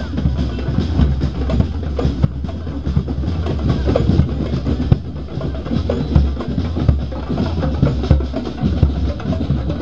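Drum-led percussion music: many drums struck in a dense, busy rhythm.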